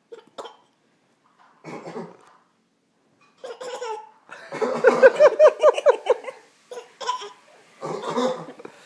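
Short coughs traded between an adult and a 7-month-old baby, who mimics the cough. In the middle comes a loud burst of quick, rapid laughter, then more coughs near the end.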